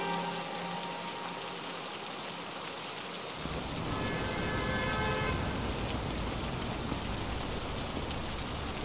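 A steady hiss, joined about three and a half seconds in by the low rumble of city street ambience.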